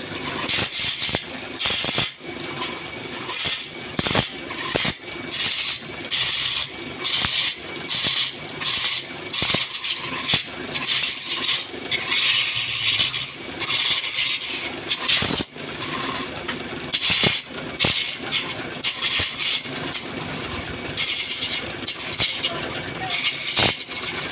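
Woodturning on a lathe: a tool pressed against the spinning wood in repeated short high-pitched bursts, roughly one a second, over the steady run of the lathe.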